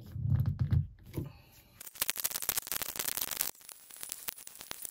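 Vise-Grip locking pliers clamped on a seized Price Pfister faucet handle base, creaking, scraping and clicking against the metal as the handle is forced; the handle is fused to its base by a degrading gasket. A brief low thud comes in the first second, and the clicking is densest from about two seconds in, then thins out.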